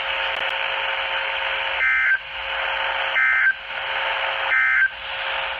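Emergency Alert System end-of-message code on a weather-radio broadcast: three short, shrill two-tone digital data bursts about a second and a half apart over a steady radio hiss that cuts off abruptly at the end. It marks the close of the flash flood warning.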